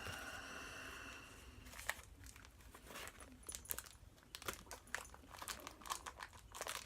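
Faint crinkling and crackling of packaging as a vinyl record is handled and turned over, with scattered small crackles from about two seconds in.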